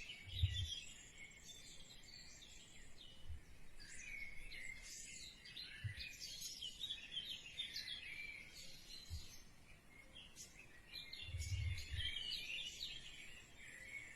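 Faint birdsong: many short chirps and twitters, with a few soft low thumps.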